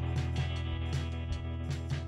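Background music with a steady, sustained bass line and a regular beat.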